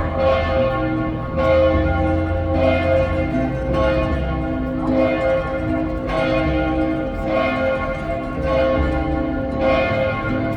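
Church bells ringing, a new stroke about every second with each toll's hum ringing on into the next.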